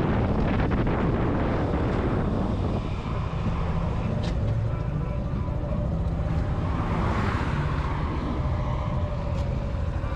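A motorcycle running at road speed with wind noise on the microphone. The wind is heaviest for the first couple of seconds, then eases to a steadier rumble.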